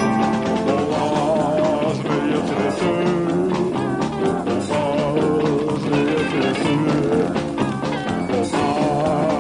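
Live rock band playing: electric guitars over a steady drum beat, with a wavering melodic line on top.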